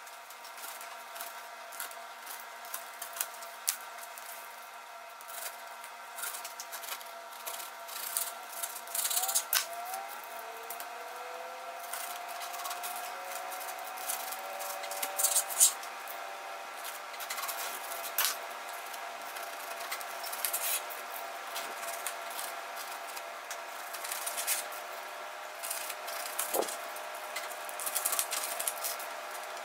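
Long knife sawing and pressing through a crisp baked puff-pastry sheet for mille-feuille, giving irregular crunching and scraping strokes, some louder cracks among them.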